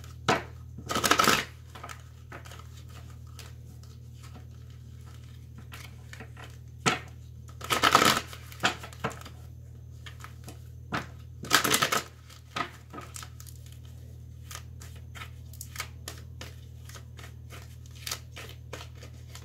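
Tarot cards being shuffled by hand: scattered soft card clicks, with three louder riffling bursts, about a second in, near eight seconds and near twelve seconds, over a steady low hum.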